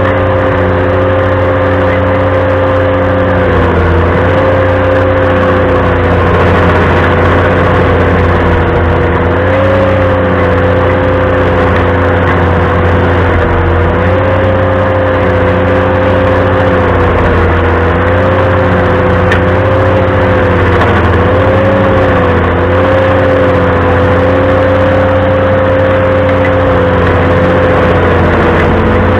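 Ventrac compact tractor running a stump grinder attachment: a steady engine hum with a sustained whine that dips slightly in pitch a few times.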